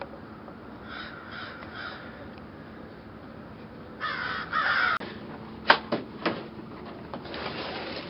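Crow cawing: three short caws about a second in, then a louder, longer caw around four seconds in. These are followed by a few sharp knocks and some rustling as something is handled.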